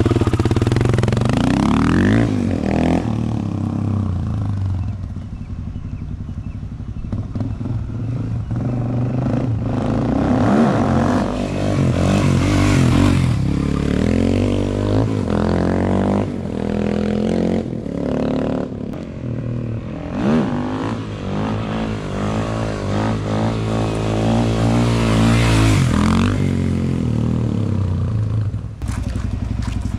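Suzuki DR-Z400SM's single-cylinder four-stroke engine revving as the motorcycle pulls away, rising in pitch through the gears in the first few seconds, then fading and swelling as it rides off down the street and comes back.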